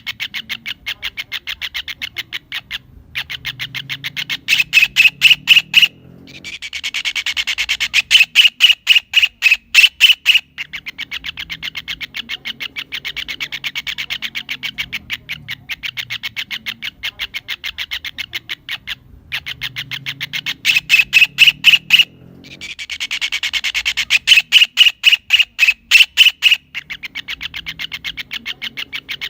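Kingfisher (cekakak) calling: long runs of rapid, sharp notes several a second, swelling twice into louder, harsher phrases around 5–10 s in. The same call sequence repeats about 16 seconds later.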